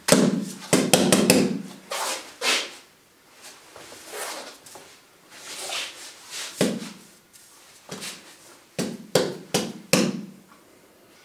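Fists and forearms striking a wall-mounted Wing Chun training device: thuds on its padded wall bags and knocks against its arm. Quick runs of several hits come about a second in and again near the end, with single hits in between.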